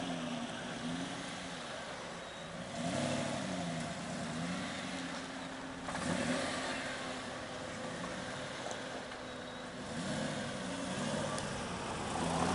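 Mansory-tuned Aston Martin V8 Vantage's engine idling and revved repeatedly, its pitch rising and falling with each blip of the throttle. It grows louder near the end as the car pulls away.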